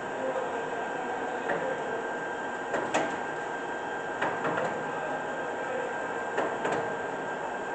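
Cincinnati geared-head engine lathe: a steady running noise with a thin steady whine, broken by about six sharp metallic clunks and clicks as the chuck and headstock are handled.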